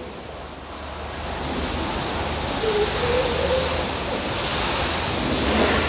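Steady workshop noise, a rushing hiss with a low hum under it, growing louder over the first two seconds.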